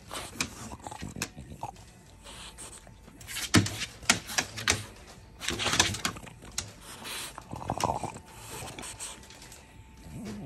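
A French bulldog's claws clicking and scrabbling on a wooden tabletop during rough play, with a few louder noisy scuffles around the middle.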